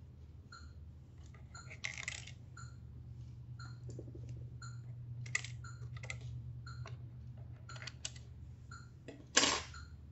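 Light clicks and rattles of small wire connectors and plastic parts being handled inside an opened syringe pump, with a louder clatter about nine seconds in. Under them run a steady low hum and a faint regular ticking.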